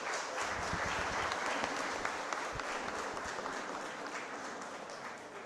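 Hall audience applauding, a dense patter of many hands clapping that fades gradually toward the end.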